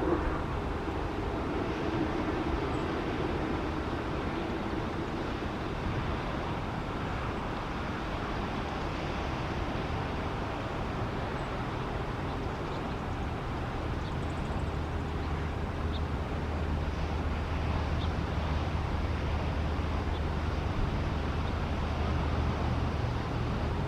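Steady outdoor background noise: an even hiss over a low hum that grows a little stronger about halfway through, with a few faint high ticks.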